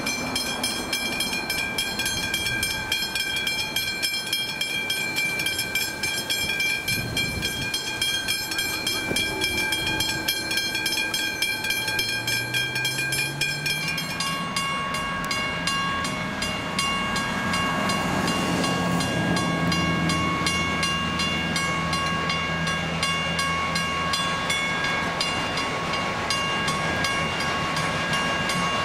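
Railway level crossing bells ringing with rapid, evenly repeated strikes: a Westinghouse hybrid bell, then, about halfway through, a Western-Cullen-Hayes 333 second-generation mechanical bell with a different set of ringing tones. A low drone rises in pitch and then holds underneath in the second half.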